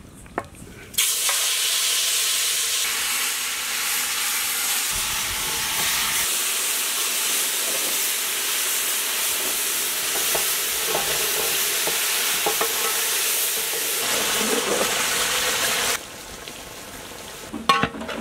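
Marinated mutton pieces sizzling in a large metal cooking pot, stirred with a long ladle that now and then scrapes the pot. The sizzle starts suddenly about a second in and cuts off near the end.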